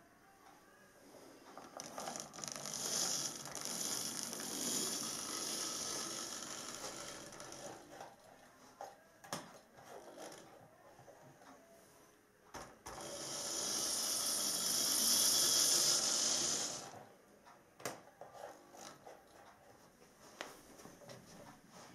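Model class 47 diesel locomotive running on non-digital model railway track: its small electric motor and gears whirring, with wheels on the rails. It grows louder twice as it passes close, from about two to seven seconds in and again from about thirteen to seventeen seconds in, with a few sharp clicks in between.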